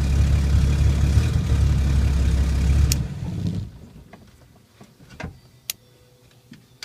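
The 262 straight-six of a 1950 Hudson Commodore idling steadily, with its choke set well lean and the carburettor still needing tuning. About three seconds in the engine shuts off and runs down to quiet, leaving a few light clicks.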